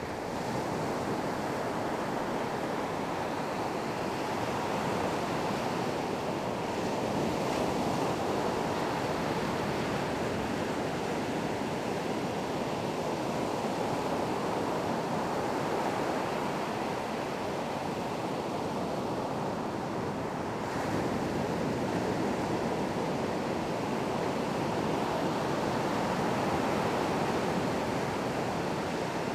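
Steady rush of rough sea and strong wind: waves and spray breaking, with wind buffeting the microphone.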